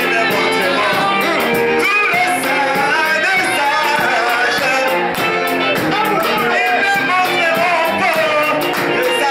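Live worship band music: a man sings lead into a microphone over acoustic guitar and keyboard, with a steady cymbal beat from the drums.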